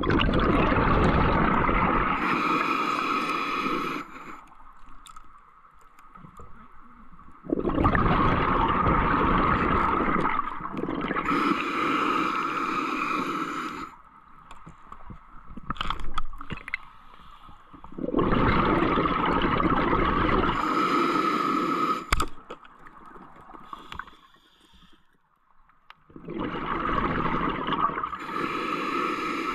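A scuba diver breathing through a regulator underwater: four breaths, each a loud rushing hiss followed by the fizzing rumble of exhaled bubbles, with quieter pauses between them.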